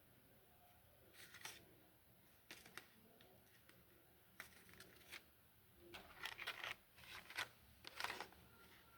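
Faint, irregular rustling and light clicks of hands handling packaging and small sewing items, busiest in the last few seconds.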